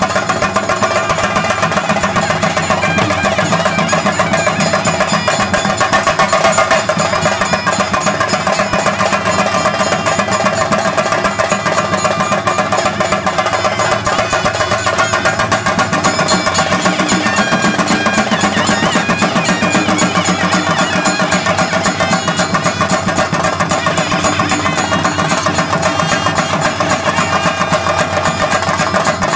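Chenda drums playing a fast, unbroken roll with a steady ringing tone above it, the ritual percussion ensemble that accompanies a theyyam dance.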